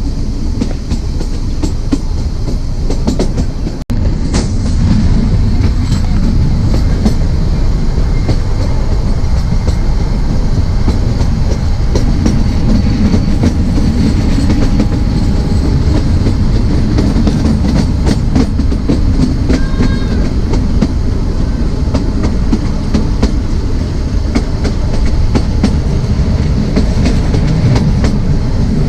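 Narrow gauge train running along the track: a steady low rumble of the wheels with a continual clickety-clack over the rail joints. There is a brief break about four seconds in.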